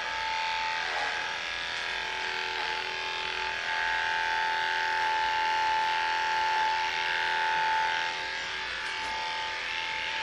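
Cordless electric dog grooming clippers running steadily with an even, high hum while trimming the hair on a Jack Russell terrier's face.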